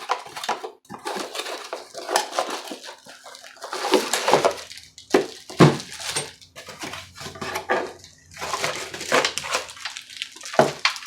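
Hands handling and unpacking the tool's parts and packaging: irregular knocks and clatter of hard items being moved and set down, mixed with short rustles.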